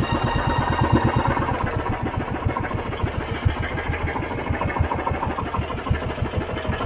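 Small fishing boat's engine running steadily, with a fast, even chugging beat.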